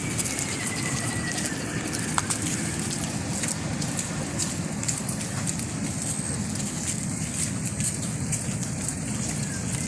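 Steady rushing of a fast-flowing river, with a few faint clicks over it.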